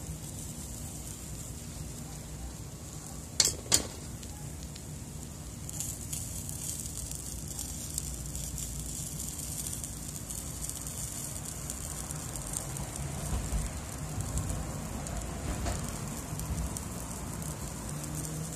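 Two sharp metal clanks about three and a half seconds in, as the hinged wire basket of fish is turned over on the charcoal grill. Then marinated Atlantic croaker sizzling over hot charcoal, a steady hiss that grows stronger after the flip.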